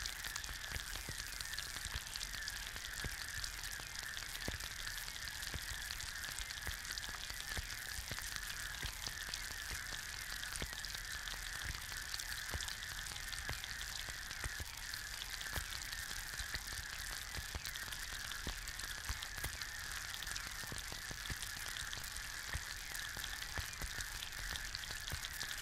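An egg frying in a pan: a steady sizzle made of many tiny crackles and pops from the bubbling white, over a constant hiss.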